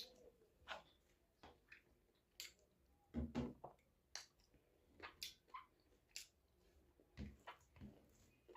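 A person eating soft millet dhido and chicken curry: quiet chewing with wet mouth clicks and smacks about once a second, and a louder run of smacks about three seconds in.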